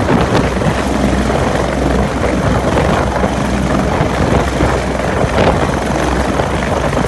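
Bell 430 twin-turbine helicopter running on the ground with its main and tail rotors turning, a loud, steady engine and rotor noise with a low hum.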